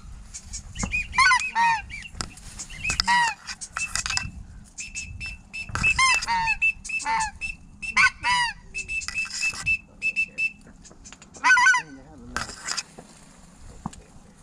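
Waterfowl calling: runs of repeated honks in quick groups of several, with short high steady whistles between them. The calling comes in bursts through most of the stretch and dies away near the end.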